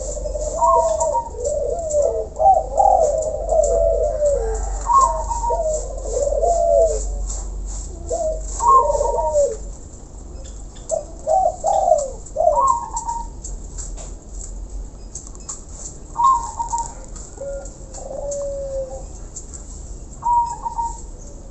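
Several caged doves cooing in repeated phrases. The calls overlap in the first half and come more sparsely after that.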